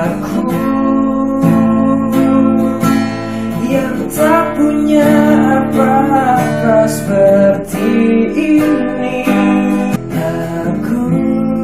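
Acoustic guitar strummed steadily, playing the chords of a song between sung lines.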